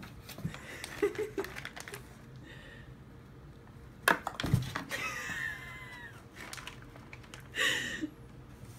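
Scattered cardboard knocks and rustles from a heavy cat shifting in and jumping between open cardboard boxes, with a sharp knock about four seconds in followed by a dull thump.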